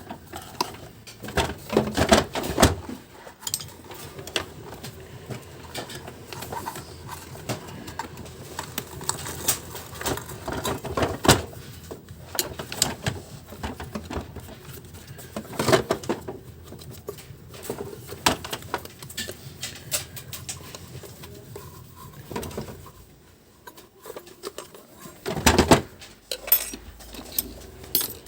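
Irregular clicks, knocks and clatter of the Philips FC8950 vacuum cleaner's plastic housing parts and tools being handled as the cleaner is taken apart, with louder knocks now and then.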